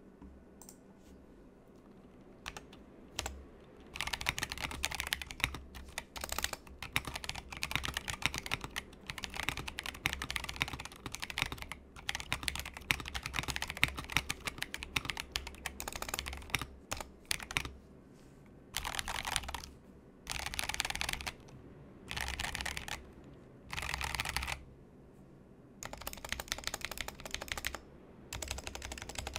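Stock Epomaker MiniCat64 stacked-acrylic mechanical keyboard being typed on, with stock Drop Holy Panda tactile switches, XDA PBT keycaps and dry, unlubed stabilizers. A few separate keypresses come first, then fast typing in runs of several seconds with short pauses between them.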